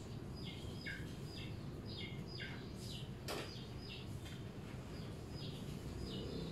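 Small birds chirping: short, quick falling chirps, about two a second, over a steady low background noise. One sharp click sounds a little past the middle.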